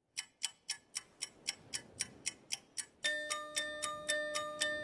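Steady clock-like ticking, about four ticks a second. About three seconds in, held musical notes come in under the ticks as a music track begins.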